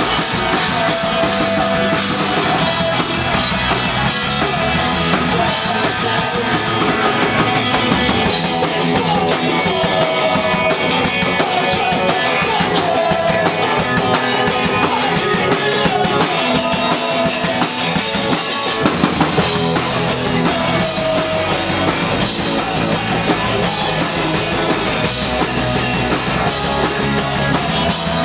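A punk rock band playing live, a drum kit driving steadily under the full band. For about ten seconds in the middle the low end thins out while the cymbals keep up a fast, dense pattern.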